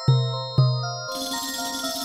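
Music: chiming, bell-like tones over two deep bass notes struck about half a second apart, then a hiss of noise that fills the last second.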